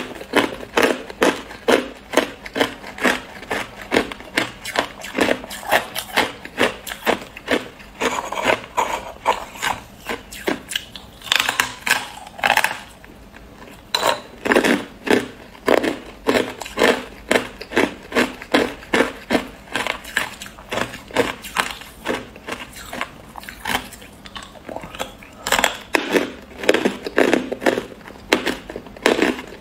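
Hard ice being crunched and chewed between the teeth: a rapid run of sharp crunches, about three a second, with a short pause about thirteen seconds in.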